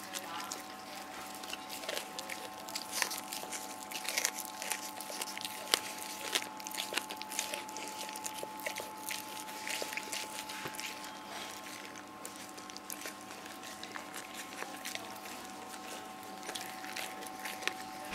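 Rottweiler gnawing a raw deer bone: wet chewing broken by many sharp cracks and crunches, busiest in the first half and thinning out later.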